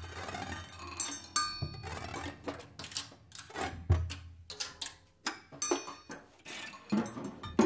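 Drum kit played with sticks in a sparse, irregular pattern: scattered sharp taps and clicks on drums and cymbals, with a few deeper thumps.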